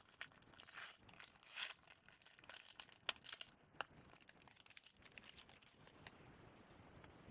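Wrapper of a 1997-98 Fleer Ultra basketball card pack crinkling and tearing as it is pulled open, a run of short, sharp crackles that dies away about six seconds in.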